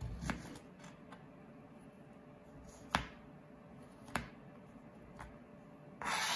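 Kitchen knife cutting the stem off an eggplant on a plastic cutting board: a few sharp knocks as the blade meets the board, the loudest about three seconds in and again a second later. A short scraping noise follows near the end.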